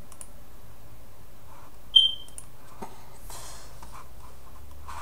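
A single short, high electronic beep about two seconds in, over a steady low hum, with a few faint clicks.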